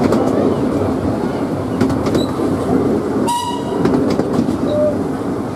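Narrow-gauge passenger train running steadily, heard from an open carriage: a continuous rumble of wheels on the track with occasional clicks over rail joints. About three seconds in there is a brief high-pitched toot.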